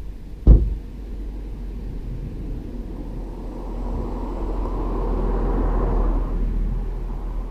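Volvo C70 D5's five-cylinder turbodiesel, its sound swelling steadily to a peak about six seconds in, then easing off. A sharp low thump about half a second in is the loudest moment.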